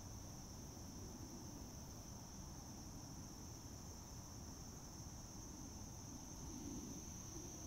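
A faint insect chorus: one steady, high-pitched drone, over a low rumble.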